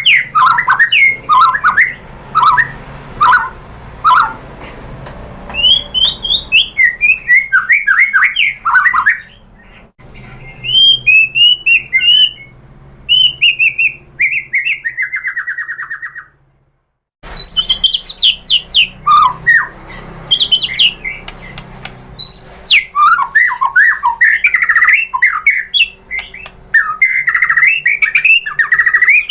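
White-rumped shama (murai batu) singing a long, varied song of loud whistled phrases, rapid chattering notes and trills, broken by a brief total dropout about seventeen seconds in.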